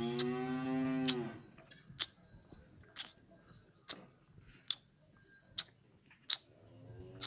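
A cow moos: one long, low call that ends a little over a second in, and another begins near the end. In between, sharp ticks come evenly about once a second.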